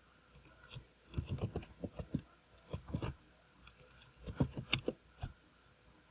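Computer keyboard typing: two short runs of quick key clicks with a brief pause between them.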